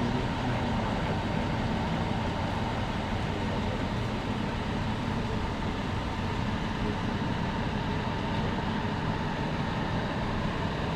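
Steady rumble of a running motor vehicle, an even, unchanging noise with a faint low hum.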